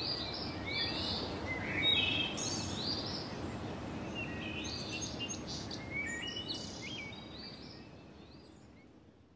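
Small birds chirping over a soft, even outdoor background hiss, fading out about a second before the end.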